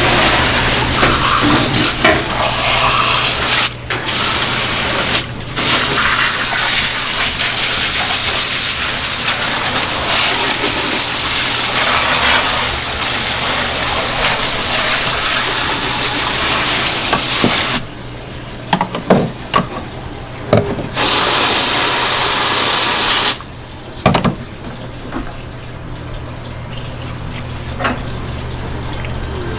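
Water hissing from a handheld hose spray nozzle as blood is rinsed off a large yellowtail and the cutting board, broken off twice early on and stopping at about two-thirds of the way, with one more short spray after. Then come a few knocks of the fish and knife being handled on the board, over a steady low hum.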